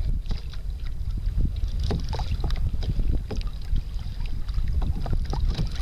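Wind buffeting the microphone in a steady low rumble, with choppy sea water slapping and splashing against the hull of a kayak in a stream of short, irregular splashes.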